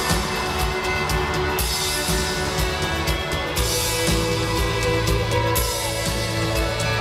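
Rock band playing live: full-band music with a steady drum beat under sustained guitar chords.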